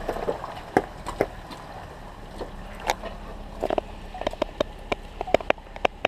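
Jeep Wrangler engine idling low and steady, with irregular sharp clicks and knocks throughout.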